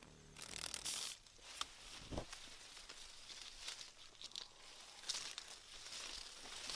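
Leaves and twigs rustling and crackling in short, irregular bursts as a hand pushes through tree foliage, with one dull thud about two seconds in.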